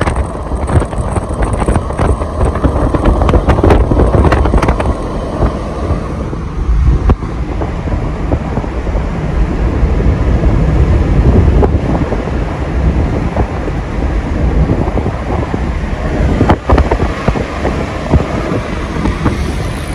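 Road noise and wind rush inside a moving car, with a heavy low rumble that swells and dips unevenly, as wind does on a phone microphone.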